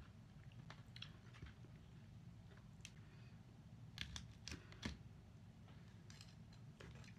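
Faint clicks and light taps from hands handling a cardboard takeaway box and a piece of fried chicken, a few sharp ticks bunched about four to five seconds in, over a low steady hum.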